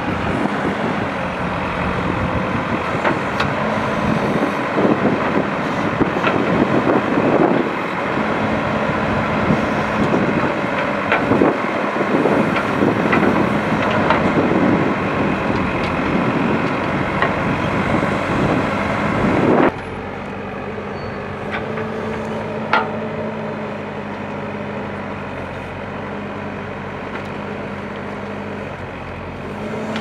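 ACE DigMaster AX-124 backhoe loader's diesel engine working under load while the backhoe bucket digs and scrapes through rocky soil, with scattered clatter of dirt and stones. About two-thirds of the way through the sound drops suddenly to a quieter, steady engine hum.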